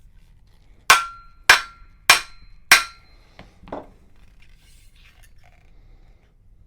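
Hammer tapping a wooden furniture part down into its joint: four sharp taps about half a second apart, leaving a faint ringing tone, then two lighter knocks.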